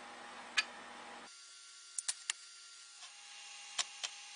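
Heavy stainless steel hinge leaves clicking and knocking against each other and the steel plate as they are handled and laid down: one sharp click about half a second in, a quick run of three around two seconds, and two more near the end. A faint steady hum underneath drops away about a second in.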